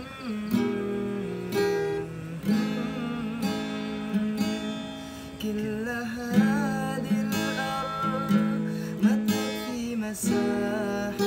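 Acoustic guitar strummed in chords, with a strong stroke about once a second. A man's voice sings along over the guitar from about three seconds in.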